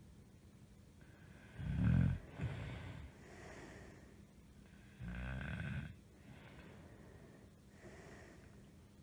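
A woman snoring in her sleep: two loud, rough snores about three seconds apart, each followed by a softer breath.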